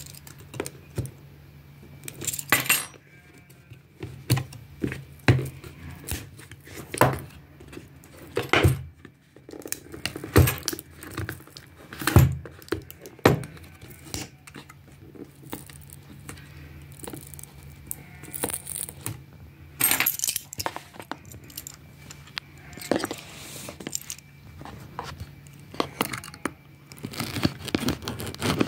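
A metal key scraping, tapping and clicking against a cardboard box as it cuts the clear seal stickers, with the box being handled and turned; the scrapes and clicks come irregularly.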